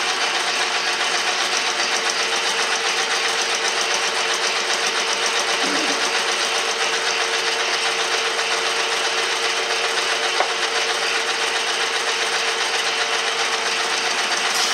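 10-inch Logan metal lathe running at about 170 RPM, a steady mechanical whir with a constant hum.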